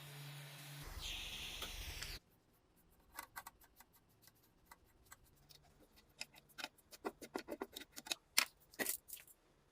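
Work on an old harmonium: a steady hiss that cuts off suddenly about two seconds in, then a run of light, irregular clicks and taps that come faster toward the end.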